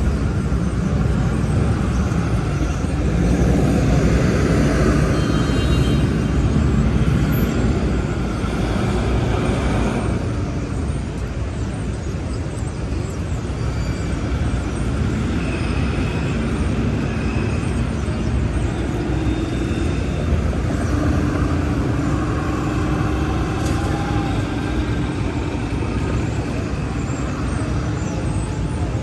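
Busy city street traffic: cars, trucks and buses running past in a steady rumble, louder for a few seconds near the start.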